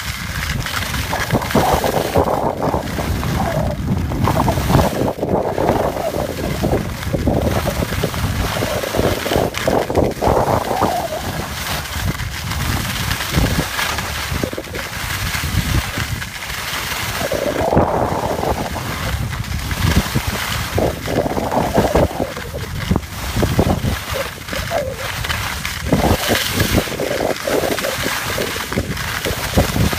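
Wind rushing and buffeting over the microphone of a skier moving downhill, with skis scraping over the snow; the rushing swells and fades unevenly.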